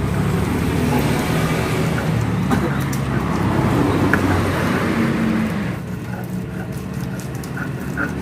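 Road traffic: motor vehicles running past, with indistinct voices. It gets quieter about six seconds in.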